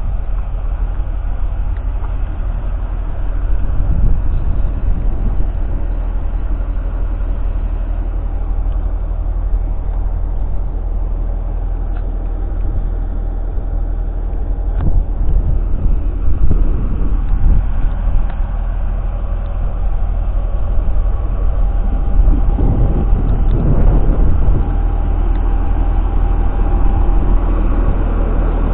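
The JCB Fastrac 4220's 6.6-litre six-cylinder diesel engine runs steadily. It swells louder now and then and is loudest in the second half, with the pitch shifting a little near the end.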